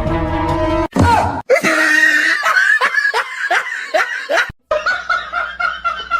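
Laughter in quick, rhythmic bursts, broken off abruptly at a few points.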